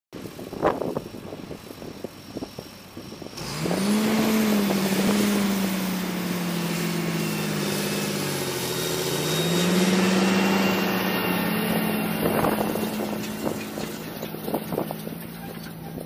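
John Deere 8130 tractor's six-cylinder diesel engine running under load as the tractor pulls a field cultivator past. The engine note comes in about three seconds in, rises, dips around the middle and climbs back to a steady drone.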